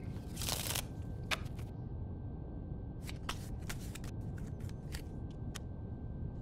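Playing cards being handled: a swish about half a second in, then scattered light snaps and clicks, irregular and thickest in the second half, over a steady low room hum.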